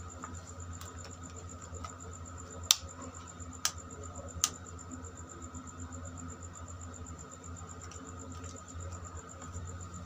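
Plastic modular switches on a homemade switchboard being clicked, with three sharp clicks in the first half and a few fainter ones, over a steady low hum.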